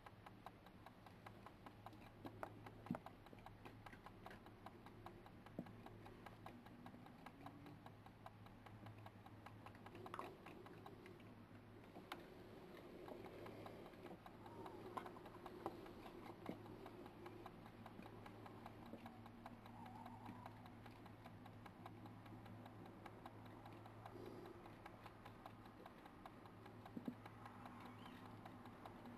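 Near silence: a low steady hum with faint, irregular clicks and ticks scattered throughout, a few slightly louder than the rest.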